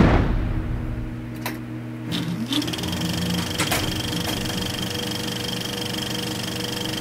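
Film projector running sound effect: a steady mechanical clatter over a hum, with a few sharp clicks in the first few seconds. It opens on the tail of a whoosh.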